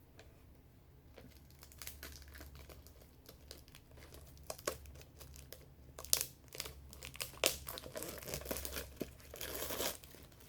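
Packaging crinkling and tearing as a phone repair toolkit is unwrapped by hand: scattered crackles at first, growing busier in the second half, with a dense stretch of rustling near the end.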